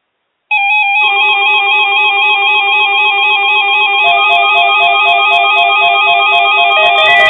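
Several weather alert radios sounding their alarms at once for the weekly test: loud, overlapping beeping tones, each warbling rapidly between two pitches. It starts suddenly about half a second in, with more tones joining in after that.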